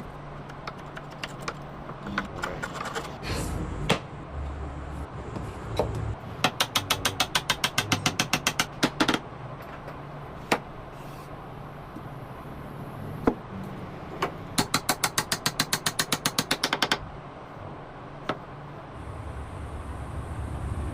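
Two runs of rapid, evenly spaced sharp clicks, about ten a second, each lasting two to three seconds, with scattered single knocks between them and a low hum rising near the end.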